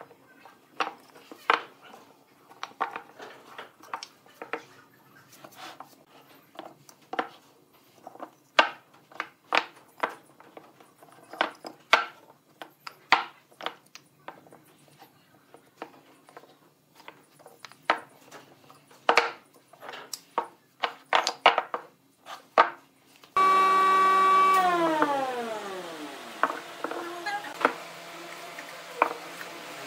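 Hardwood blocks knocking and clacking against each other and on a wooden workbench as they are set down and arranged, in many separate knocks. Near the end a loud machine hum cuts in suddenly, falls in pitch for about two seconds, and settles into a steady, quieter hum.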